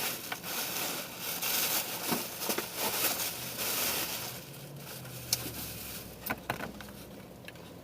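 Takeout food container and its packaging crinkling and crackling as leftovers are packed into it and the lid is put on. The handling is dense for the first four seconds or so, then thins to a few separate clicks.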